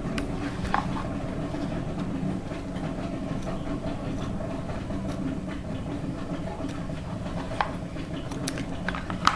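Scissors snipping through purse fabric: a scattering of short, sharp clicks, each several seconds apart, over a steady low hum.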